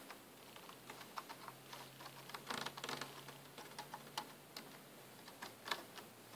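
Scattered key presses on a computer keyboard: faint separate clicks, with a quicker flurry about two and a half seconds in.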